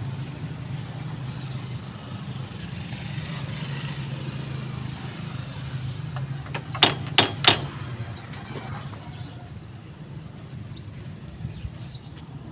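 Three sharp knocks in quick succession, about seven seconds in, over a steady low hum. Short rising bird chirps come and go.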